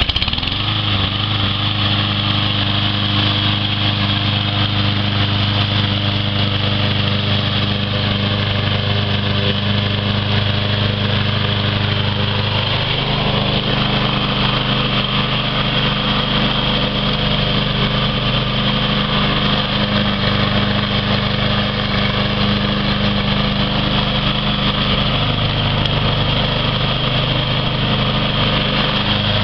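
Craftsman push mower's single-cylinder Briggs & Stratton 7.25 engine catching after a pull-start and running steadily. About halfway through its note changes as the mower is pushed through the grass and starts cutting.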